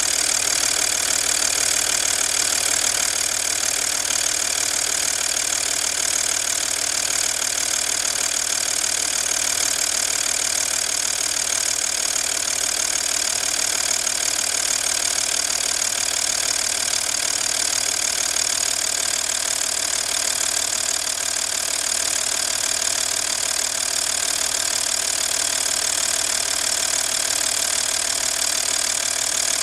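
V6 TDI diesel engine running steadily at idle, making the strange noise its owner is asking about.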